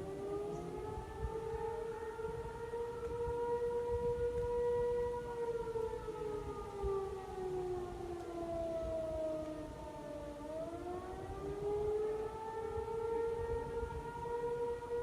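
Outdoor tornado warning siren sounding its wail during a test. The pitch holds high, slides down between about five and ten seconds in, then rises again and holds.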